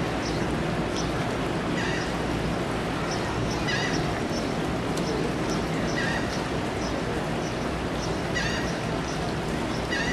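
Gulls giving short high cries, about one every second or two, over a steady rush of wind and surf.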